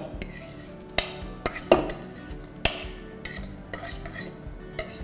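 A metal fork scraping rice out of a plastic bowl into a stainless steel pot, with a handful of sharp utensil clinks and taps scattered through.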